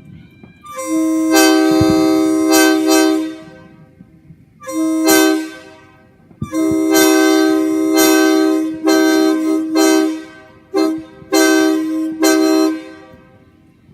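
Locomotive air horn sounding a series of blasts, some long and some short, each a chord of several notes, with short breaks between them.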